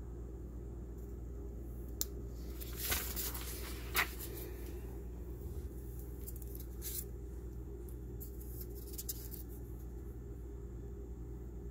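Paper and phone handling noises over a steady low hum: a click about two seconds in, a short rustle followed by a sharper click about four seconds in, and a few faint scratchy sounds a few seconds later.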